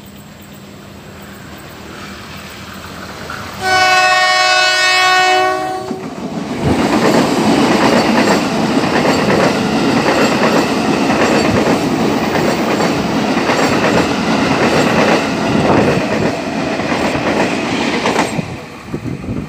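Ex-Tokyo Metro 6000 series electric commuter train approaching and sounding its horn, a chord of several steady tones lasting about two seconds. It then passes close by with loud, dense wheel-on-rail noise for about twelve seconds, which drops away near the end.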